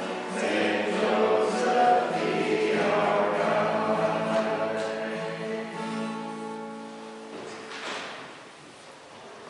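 Voices singing a hymn in a church, slowly fading and dying away about seven seconds in.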